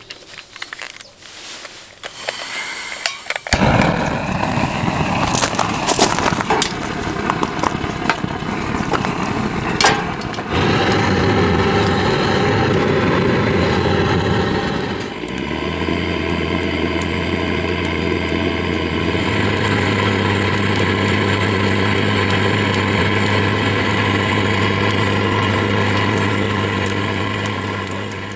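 A few clicks and knocks, then a loud steady mechanical running sound with a low hum, like a small motor or engine, starting about three and a half seconds in. Its tone shifts around ten seconds in and again around fifteen seconds in, then holds steady.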